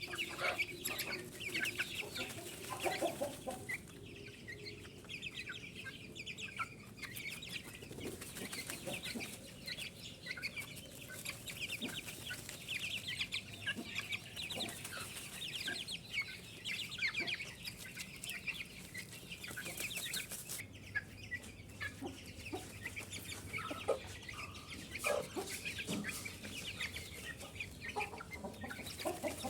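Aseel chicks peeping continuously in quick, high chirps, with a few lower clucks mixed in.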